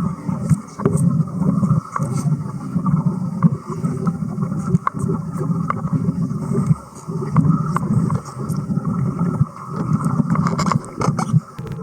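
Underwater arc welding: a low, bubbling rumble that swells and dips every second or two, with many sharp crackling clicks from the arc.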